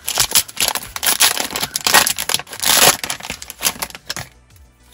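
Foil wrapper of a trading-card pack being torn open and crinkled by hand, a dense crackling that stops about four seconds in.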